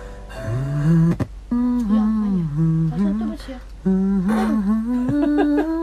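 A man humming a slow melody in a low voice, phrase by phrase, with short breaths between the phrases and a sharp click about a second in.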